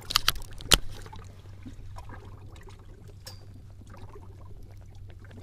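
Water trickling and pouring on a small fishing boat, over a steady low hum. A few sharp knocks come in the first second, the loudest about three quarters of a second in.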